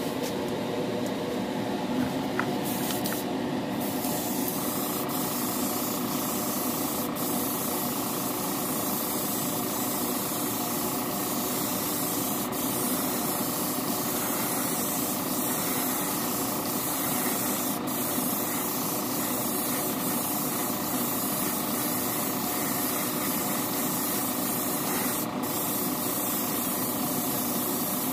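Airbrush spraying a flow coat of clear thinned with reducer onto a plastic model car body: a long, steady hiss of spray over a steady mechanical hum.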